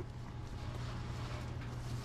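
Restaurant kitchen background: a steady low hum of running equipment, with faint light clatter and scraping over it.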